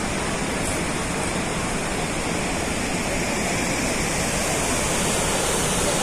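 Steady rushing roar of Hundru Falls, the Subarnarekha River pouring over the falls in full flood, growing a little louder near the end.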